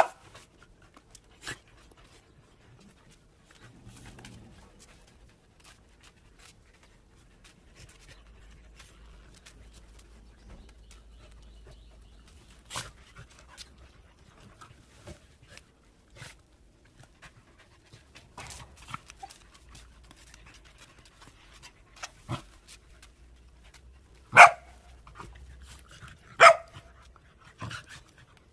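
A pack of corgis playing, with a few short, sharp barks scattered through and quieter sounds between them. The two loudest barks come near the end, about two seconds apart.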